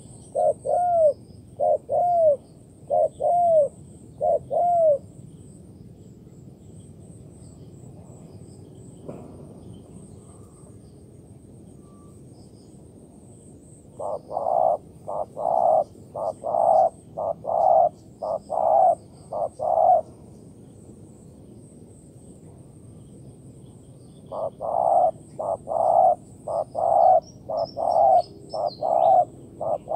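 Spotted dove giving its rapid 'gù' bowing coo, short arched notes about two a second, in three bouts separated by pauses of several seconds. This is the excited display coo of a male facing a rival or mate.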